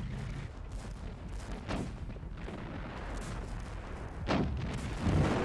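Battle gunfire and artillery shots: a sharp report about two seconds in and two louder ones near the end, over a steady low rumble.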